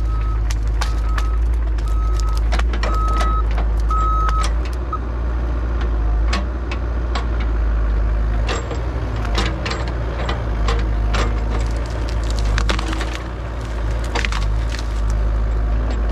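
A mini excavator's engine runs steadily while its alarm beeps about once a second for the first few seconds. Juniper branches crack and snap repeatedly as the machine breaks limbs off the felled tree.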